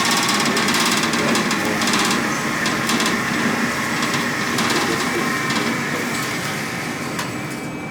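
Pistol shots at a range: a run of sharp cracks and clicks, some in quick clusters, over a steady noisy din.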